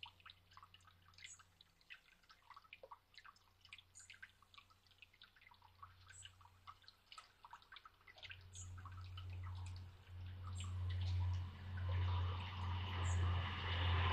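Water from a small garden fountain dripping and trickling into a stone basin, a string of small irregular ticks. From about eight seconds in a louder low rumble and rustling set in and build toward the end.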